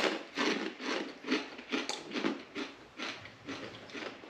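Crunchy rolled tortilla chips (Takis) bitten with a sharp crack, then chewed with short crunches about two or three a second.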